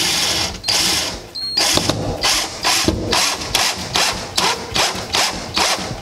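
Cordless drill/driver driving a screw through a door stopper into a wooden baseboard: one long run of the motor, then short pulses of the trigger about three a second as the screw seats.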